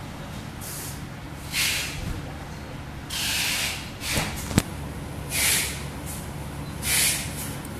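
Six short bursts of hiss, each under a second, with one sharp click about halfway through, over a steady low hum.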